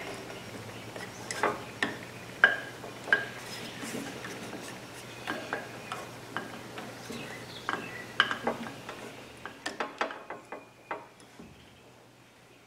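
Scattered sharp metal clicks and clinks, some with a short ring, as a bent sheet-metal bracket and its screw are fitted against a drum sander's housing and a screwdriver works at a screw in an unthreaded hole. A low steady hum runs underneath.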